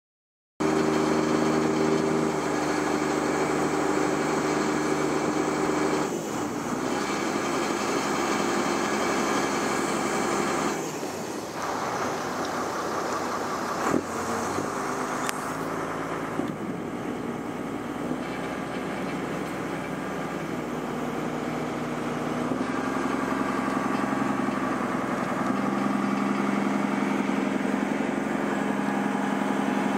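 Small passenger ferry's engine running steadily while under way, its note shifting a few times, with wind noise on the microphone. A single sharp click comes about halfway through.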